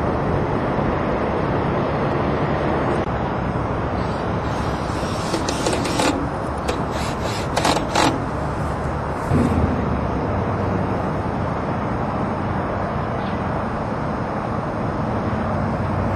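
Steady outdoor background noise, with a few short clicks and knocks partway through.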